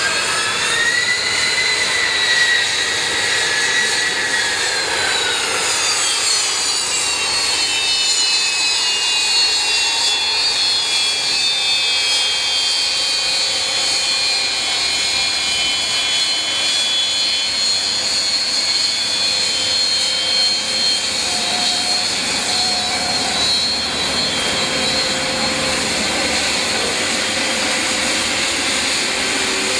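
Aircraft turbine engine running with a high multi-tone whine over a steady rush. The whine swells and bends in pitch over the first few seconds, then settles into a steady, slowly falling tone.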